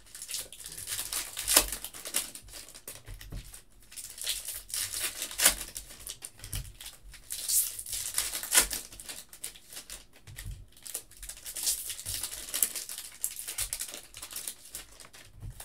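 Foil trading-card pack wrappers crinkling and tearing as packs are ripped open and handled, in irregular crackles.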